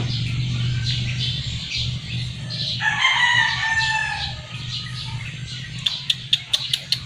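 A loud animal call, a single pitched call about a second and a half long starting about three seconds in, over a steady low hum. A quick run of sharp clicks follows near the end.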